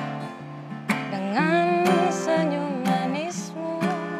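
Acoustic guitar strummed live, a chord struck at the start, about a second in and again near the end, with a voice singing one drawn-out, wavering melodic phrase over it in the middle.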